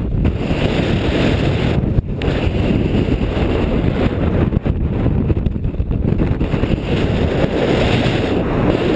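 Loud wind buffeting the microphone in strong gusty wind: a dense low rumble that rises and falls, with a brief dip about two seconds in.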